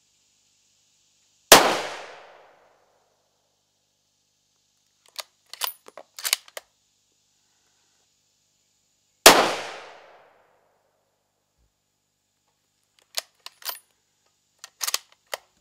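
Two shots from a .308 Winchester bolt-action rifle about eight seconds apart, each dying away over about a second. After each shot comes a quick run of metallic clicks and clacks as the bolt is worked to eject the spent case and chamber the next round.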